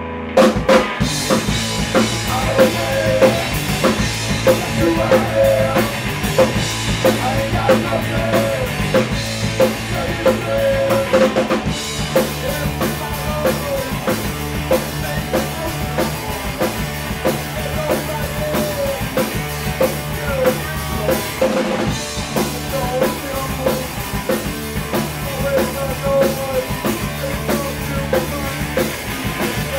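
Live rock band playing, drum kit prominent over bass and guitars; the band comes in abruptly about half a second in and plays on with a steady driving beat.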